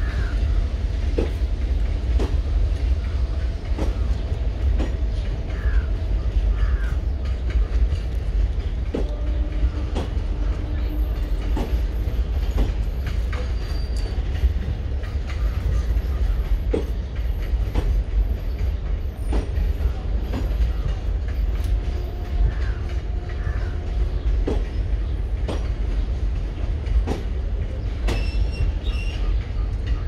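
Passenger coaches of a departing express train, double-decker and ICF stock, rolling slowly past. Their wheels click over the rail joints about once a second over a steady low rumble, with a faint wheel squeal now and then.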